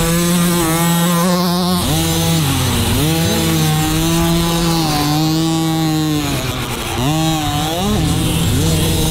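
Small two-stroke 50cc minibike engine revving hard around the track, a high buzzing note that eases off twice, about two and a half seconds in and again near seven seconds, before picking back up.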